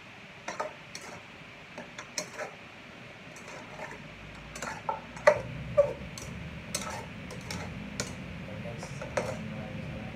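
Metal utensil knocking and scraping against a metal cooking pot as pieces of food are stirred, in irregular sharp clinks with a short ring, the loudest about five seconds in. A low steady rumble sits under it from about four seconds in.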